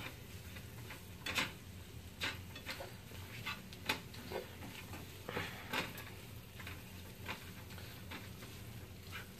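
Silicone spatula stirring black beans and onions in a skillet: irregular soft scrapes and taps against the pan, one every half second to a second or so.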